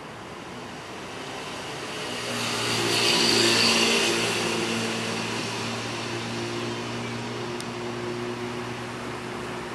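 A motor vehicle passing nearby: a steady engine hum with a rush of noise that swells to a peak about three and a half seconds in, then slowly fades.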